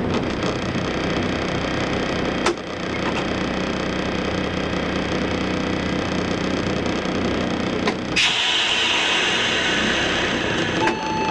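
Diesel engine of a railbus idling steadily while the railcar stands still, with a couple of single clicks. About eight seconds in a loud hiss starts and keeps on, and a steady tone comes in near the end.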